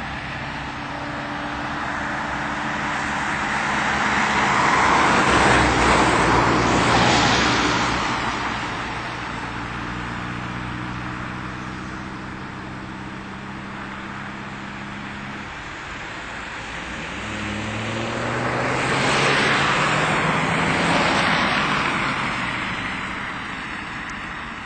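Two cars pass one after the other on a road: the first swells up and fades about six seconds in, the second around twenty seconds in. Between them a steady hum of tyres and engines carries on.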